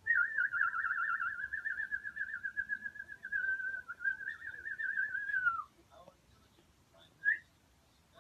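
A person whistling one long warbling note that wavers quickly up and down and ends in a falling glide about five and a half seconds in. A short whistled chirp follows near the end.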